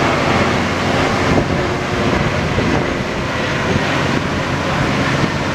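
Docked high-speed car ferry's machinery running with a steady low hum, under a constant rush of water spilling from an outlet in its hull.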